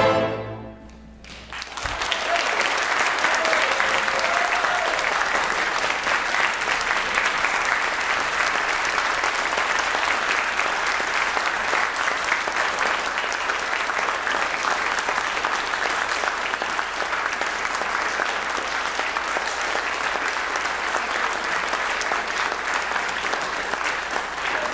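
The last chord of the piano and chamber orchestra ends at the very start; after a brief hush, about two seconds in, the audience breaks into steady applause that keeps going.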